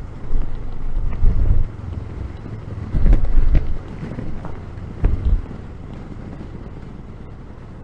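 Wind buffeting the microphone of a moving motorcycle: a low rumble in several strong gusts, one about a second in, one around three seconds and one around five, then easing to a steadier low rush.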